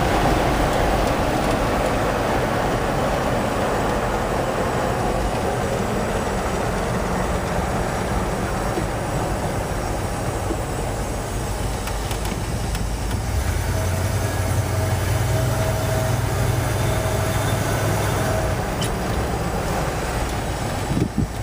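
Inside the cab of a 1979 Ford F150 with a 460 big-block V8, cruising: steady engine and road noise. About two-thirds of the way through, a deeper engine hum comes up and a faint whine joins it for a few seconds.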